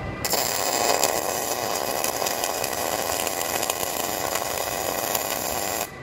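MIG welder arc on a steel truck frame, a steady crackling hiss as a continuous weld bead is run. It starts a moment in and cuts off shortly before the end when the trigger is released. This is the solid weld joining a new rear frame section after tack welds.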